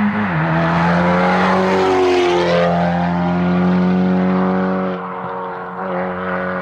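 Competition car engine running hard on a hillclimb course. The pitch falls sharply just after the start, climbs and holds steady from about two seconds in, and the sound fades after about five seconds as the car moves away.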